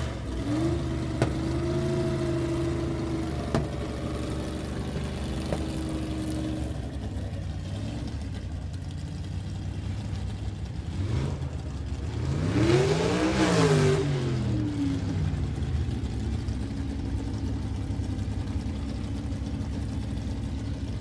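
Motorcycle engine idling steadily, revved once about halfway through, its pitch climbing and falling back, then settling to idle again.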